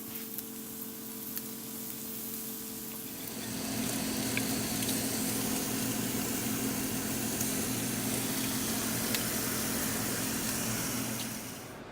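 Food sizzling on a hot grill, a steady hiss with a low hum beneath it. It grows louder about three and a half seconds in and cuts off just before the end.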